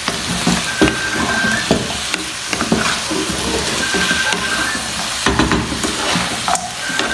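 Chicken pieces stir-frying in a pan, sizzling steadily, while a spatula repeatedly scrapes and knocks against the pan as the food is turned.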